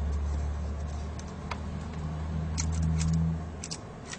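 Small hand screwdriver turning out a laptop LCD panel's mounting screw, giving a few light metal clicks and scrapes. Under it runs a low steady hum that stops near the end.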